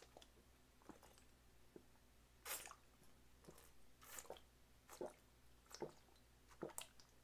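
Faint gulping and swallowing as a drink is downed in one long pull, heard as several short, soft sounds about a second apart.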